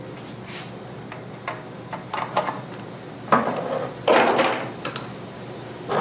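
Clinks and clatter of small metal objects being handled on a workbench: a few light knocks, then two louder rattling clatters about three and four seconds in.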